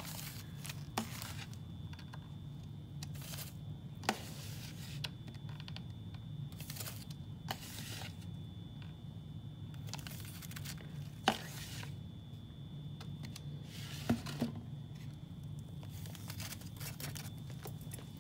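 A plastic zip-top bag crinkling and a metal scoopula scraping and tapping in short scattered bursts as baking soda is scooped from a plastic jar into the bag, over a steady low hum.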